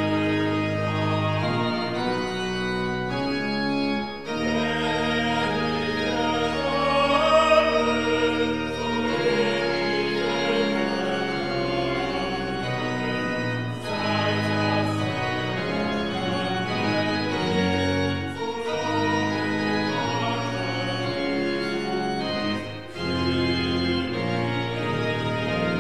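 Large baroque pipe organ, the Trost organ, playing held chords with a small group of voices singing along, the music pausing briefly between phrases.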